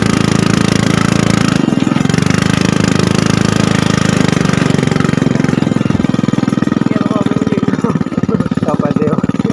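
Motorcycle engine running with a rapid, even pulsing beat.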